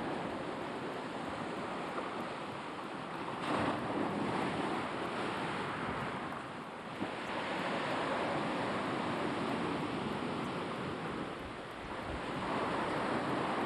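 Sea waves breaking and washing on the shore, swelling and ebbing in slow surges, with some wind noise on the microphone.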